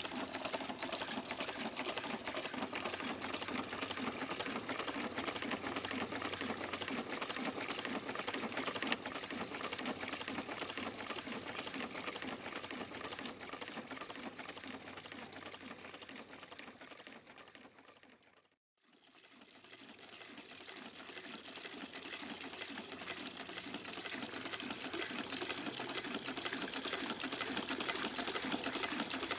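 Small Rider hot-air pumping engine running, with a steady rapid mechanical clatter from its crank and pump, and water splashing from the pump outlet. The sound fades out about two-thirds of the way in and fades back up.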